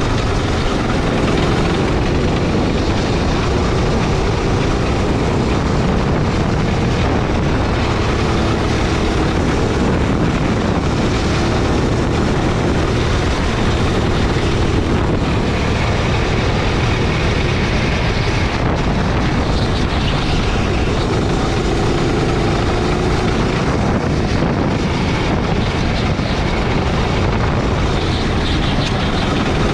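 Onboard sound of a Sodi gasoline rental kart lapping a track: its small petrol engine runs hard, its note rising and falling through the corners and straights, under a dense, steady rush of noise.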